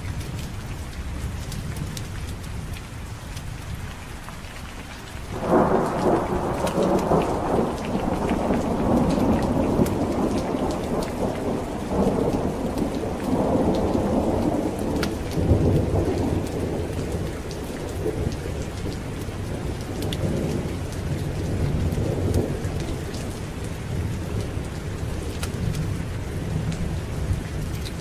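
Thunderstorm: steady rain with a low rumble. About five seconds in comes a sudden clap of thunder that rolls on in swells for ten seconds or so before fading back under the rain.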